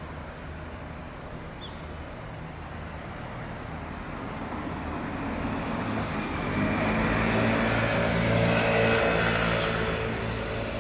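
A motor vehicle's engine humming as it approaches and passes, growing louder about two-thirds of the way in and easing off near the end.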